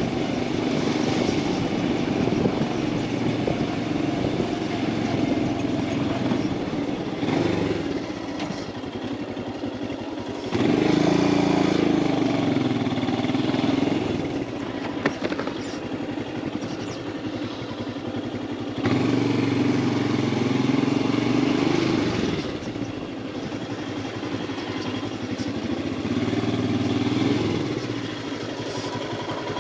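Royal Enfield Himalayan 411's single-cylinder engine running on the move. The rider opens the throttle three times, and each time the engine note rises and grows louder before easing back.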